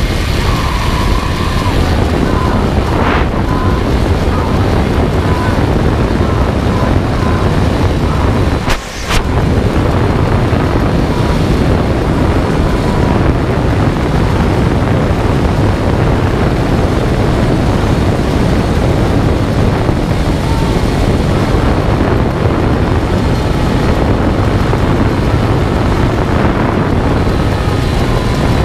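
Loud, steady wind rush buffeting the microphone of a rider speeding down a long zip wire, dropping out briefly about nine seconds in.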